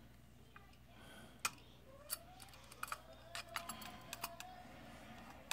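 Light, scattered clicks and ticks of a screwdriver tip seating in and turning a small screw in a projector lamp's metal bracket, about a half-dozen brief clicks spread over a few seconds.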